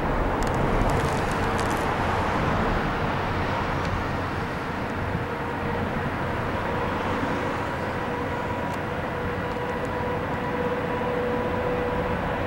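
Steady roar of interstate highway traffic on the bridge overhead, with a faint steady whine running through it.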